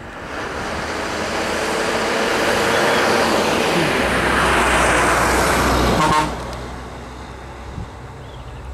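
Bus driving past at close range, its engine and tyre noise swelling over several seconds, then dropping off suddenly about six seconds in.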